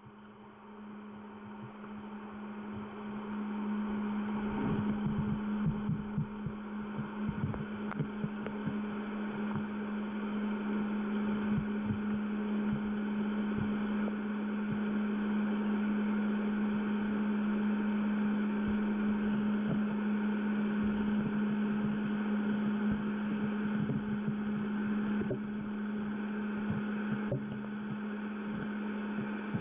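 Underwater sound of a shallow river: a steady low hum over a muffled hiss of flowing water, with scattered faint ticks, fading in over the first few seconds.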